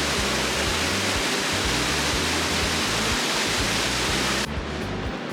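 Loud, steady rushing noise, like falling water, with background music underneath. About four and a half seconds in it cuts off abruptly to a quieter, duller background.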